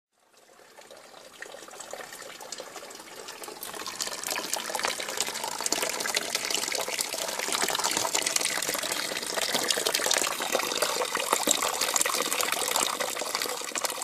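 Liquid gushing and splashing in a steady stream, building up over the first four seconds and then holding steady.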